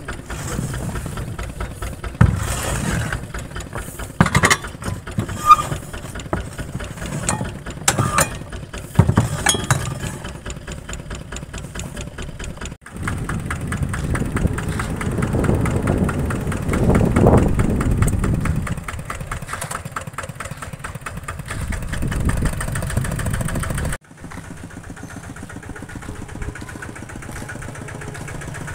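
A vehicle engine running steadily, with several sharp knocks or clanks in the first ten seconds. The sound changes abruptly twice, about halfway and again near the end, going louder and then quieter.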